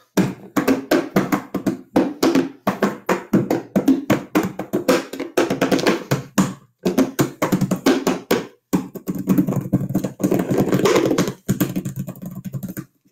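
Hand drumming on two upturned clear plastic Tupperware bowls: a fast, continuous run of slaps, each bowl giving a low ringing tone, with two short breaks about seven and nine seconds in.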